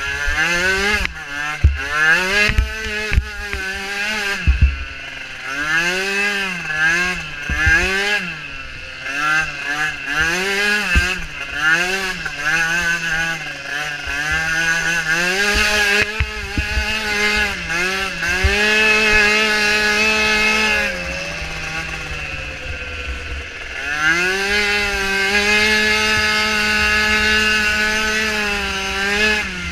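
Micro ATV's small engine revving up and down over and over, about once a second, then held at high revs for a few seconds at a time near the end. Scattered knocks run through the engine sound.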